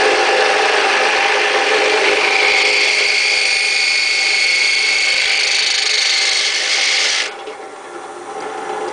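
Drill press driving a 1-inch wood bit into a thin, soft metal mason jar lid: steady grinding and rasping, joined about two seconds in by a high steady screech of the bit on the metal. The cutting noise stops abruptly about seven seconds in, leaving the drill press motor running more quietly.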